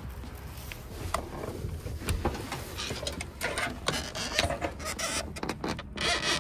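Rustling and scuffling as a person climbs in through a truck cap's open side window into the truck bed. There are scattered knocks and clicks of body and clothing against the window frame and bed, busier in the second half.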